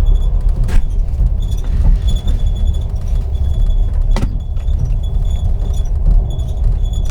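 The ceiling of a Russian Railways passenger carriage creaking in short, repeated high squeaks over the steady low rumble of the moving train, with two sharp clicks, near the start and about four seconds in.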